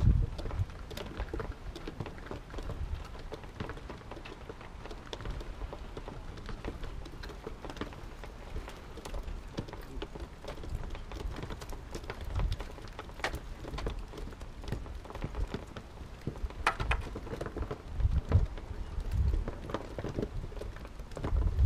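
Wind buffeting an outdoor microphone: a crackly, rain-like hiss with irregular low rumbling gusts and scattered clicks and taps.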